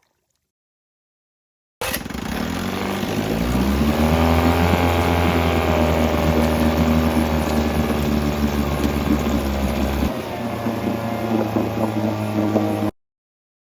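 1971 Evinrude 6 hp two-stroke outboard motor running with its freshly sanded ignition points, the points having been cleaned to cure a lack of spark. It cuts in suddenly about two seconds in, revs up, shifts in note about ten seconds in, and cuts off sharply near the end.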